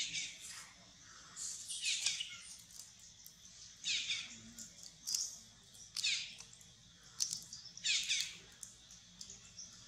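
Macaque giving repeated short, high-pitched cries that fall in pitch, one every second or two.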